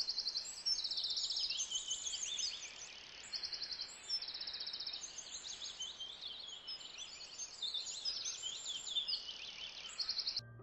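A chorus of songbirds chirping and trilling, with several high-pitched songs overlapping over a faint steady hiss of outdoor air.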